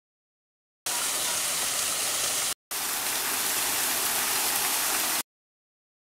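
Water of a small garden waterfall splashing onto rocks: a steady rushing hiss. It starts abruptly about a second in, breaks off briefly halfway, and cuts off abruptly near the end.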